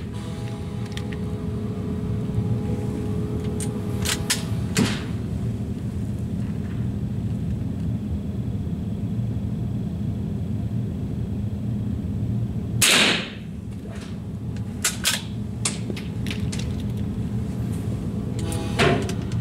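A single rifle shot about thirteen seconds in, over a steady low hum, with a few light clicks before and after it.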